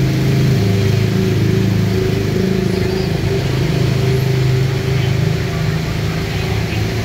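Engines of motorbikes and tuk-tuks running steadily as they drive through a flooded street, a continuous low hum.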